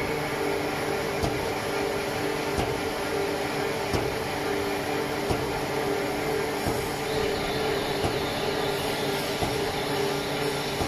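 Steady running hum of an industrial machine, several low tones over an even noise, with faint clicks every second or so.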